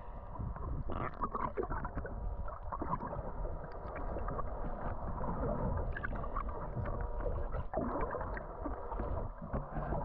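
Water sloshing and splashing against the hull of a small fishing boat, with a steady low rumble underneath and irregular short splashes throughout.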